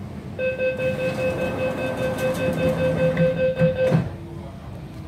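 Train door-closing warning: a rapid beeping tone for about three and a half seconds, stopping as the sliding doors shut with a thud about four seconds in.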